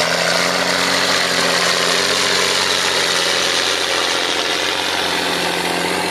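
John Deere 8400's six-cylinder diesel engine running steadily under heavy load as it pulls a seven-shank Alpego Cracker ripper deep through compacted soil.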